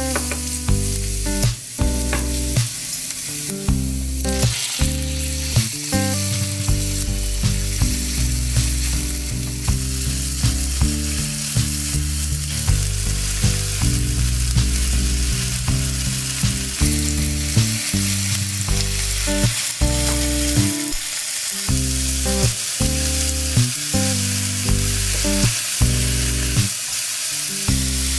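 Food sizzling as it is stir-fried in oil in a nonstick wok: garlic, chicken pieces, onion and vegetables, with regular strokes of a plastic spatula against the pan. Low steady tones that change in steps sit underneath.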